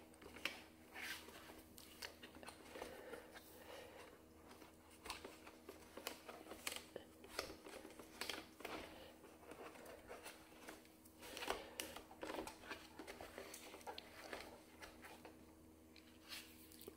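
Faint, irregular clicks, scrapes and rustles of hard plastic being handled at the brush compartment on the underside of a Vorwerk Kobold VR300 robot vacuum.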